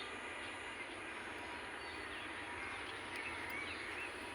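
Birds chirping faintly in short calls over steady outdoor background noise, the chirps gathering after about three seconds.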